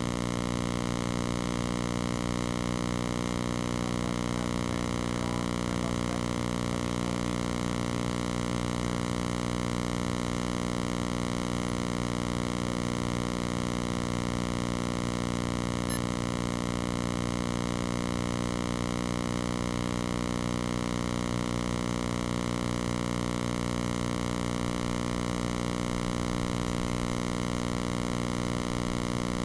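A steady, unchanging electrical hum made of many tones at once, the same for the whole time.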